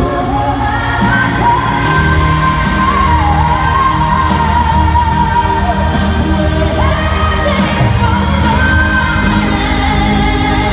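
Live pop song amplified through an arena sound system: a lead singer's voice carrying the melody over a band with a steady bass, heard from the audience seats with the hall's echo.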